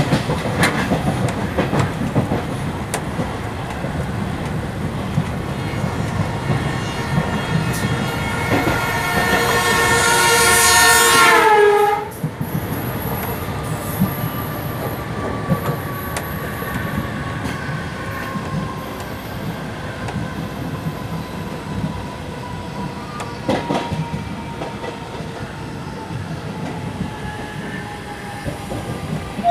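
Steady rumble and rattle of a locomotive running at speed, heard from inside its cab. About eight seconds in, a train horn grows louder for several seconds, drops in pitch as the other train passes close by, and cuts off abruptly at about twelve seconds. A faint tone falling slowly in pitch follows.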